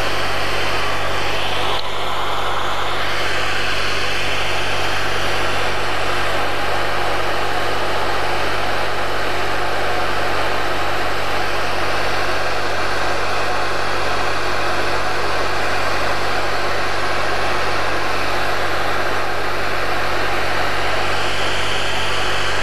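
Wood lathe running steadily with a constant motor hum and an even rushing whir while a bottle-stopper blank is sanded on it.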